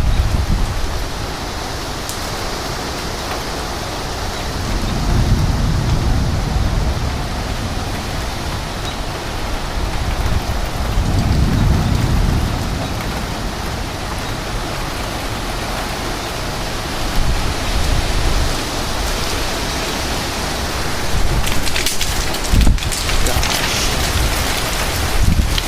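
Heavy rain pouring down in a severe thunderstorm with strong gusting wind, a loud steady rush. It swells deeply twice, about five and eleven seconds in, and a few sharp knocks come near the end.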